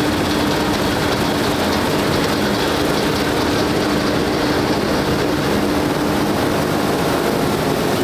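Nexat combine harvester with its Liebherr diesel engines running under load while cutting wheat: a loud, steady machine noise with a constant low hum.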